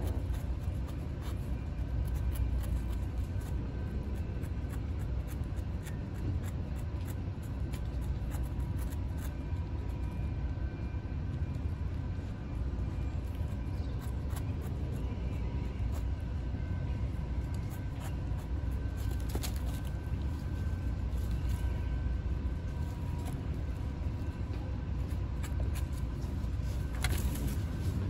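Kittens licking and lapping Churu lickable cat treat off a styrofoam board, heard as many small, irregular clicks, over a steady low background rumble that is the loudest sound throughout.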